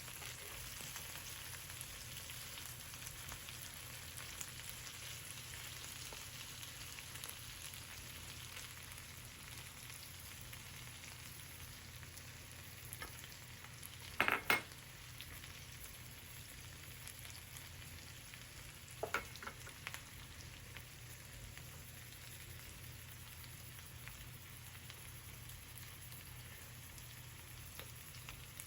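Food sizzling steadily in a frying pan, with a couple of sharp knocks from a utensil against the pan about a quarter and a third of the way through.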